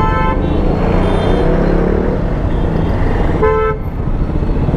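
Vehicle horns honking in heavy city traffic: a short honk at the start and a second, lower-pitched one about three and a half seconds in. Underneath is the steady running of the rider's single-cylinder KTM Duke 200 engine and the surrounding traffic.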